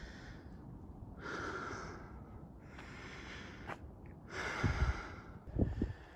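A person breathing heavily, close to the microphone, in slow breaths about every second and a half. A few low thumps come near the end.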